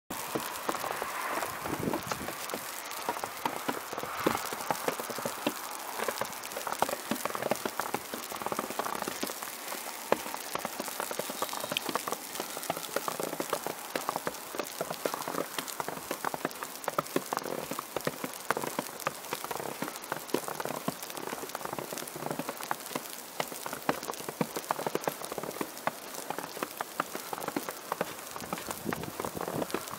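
Falling precipitation pattering steadily: a dense, irregular ticking over a soft hiss.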